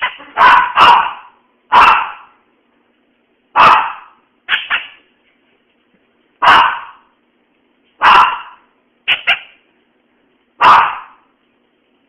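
Small Maltese dog barking repeatedly in short, sharp barks, about ten of them at uneven intervals, some in quick pairs. She is barking at a squeaky toy that frightens her.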